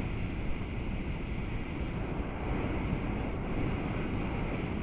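Hot-air balloon's propane burner firing in one continuous, steady blast.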